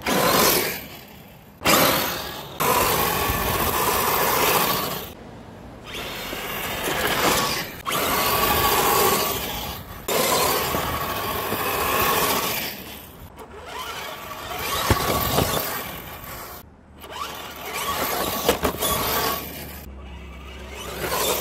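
Traction Hobby Founder II RC crawler's 550 brushed electric motor and geared drivetrain whining in repeated bursts under throttle, over a rough rushing noise. The sound stops and starts abruptly several times.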